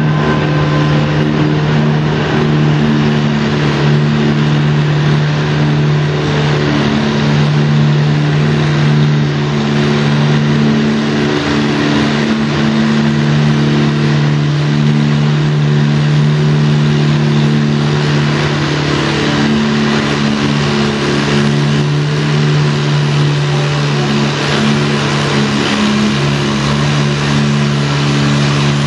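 Antique tractor engine running flat out at a steady pitch under heavy load, dragging a weight-transfer pulling sled along a dirt track.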